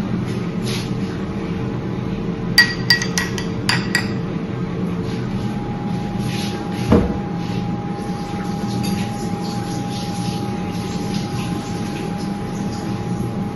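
Kitchenware clattering: a quick run of about five sharp, ringing clinks, then a single dull thud a few seconds later, over a steady hum.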